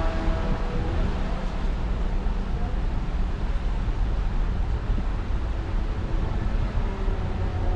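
Wind buffeting the microphone over a steady low rumble aboard the Disney Dream cruise ship as it sails away, with faint voices in the background.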